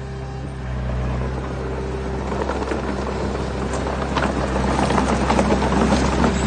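Diesel engine of heavy earthmoving machinery running steadily. From about two seconds in, a growing clatter of stones rattling and tumbling joins it.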